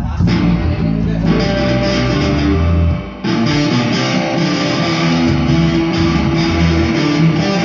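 Guitars and a bass guitar playing an instrumental passage in a live jam. The playing dips briefly about three seconds in, then comes back fuller.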